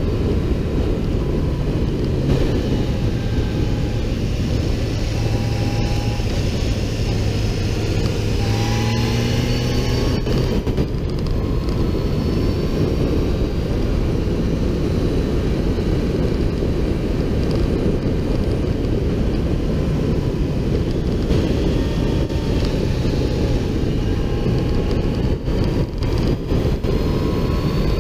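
Motorcycle riding at speed, heard from a camera on the bike: heavy wind rush over the microphone covers the engine's steady note. The engine note climbs in pitch about eight to ten seconds in as the bike accelerates, then sinks back under the wind.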